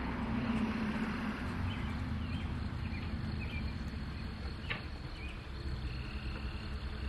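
Outdoor ambience: a steady low rumble with a few faint, short high chirps and a single sharp click a little past the middle.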